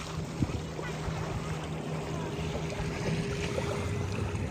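Motorboat engine running steadily in the distance over lapping water, its hum shifting to a lower pitch near the end.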